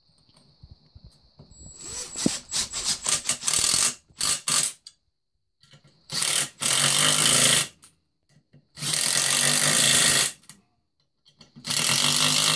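Cordless drill-driver running in short trigger bursts, driving screws into a transmission case: a stretch of quick stuttering pulses, then four steady runs of one to two seconds each, with pauses between them.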